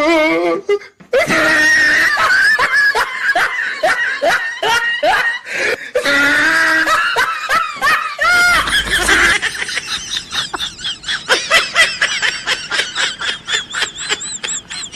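A person laughing hard: long, pitched laughter that breaks into fast, repeated bursts over the last few seconds.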